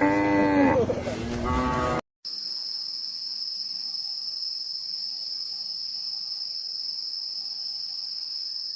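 A cow lows briefly at the start; after a short break, insects, crickets by the sound of the tags, trill steadily at a high pitch for most of the rest.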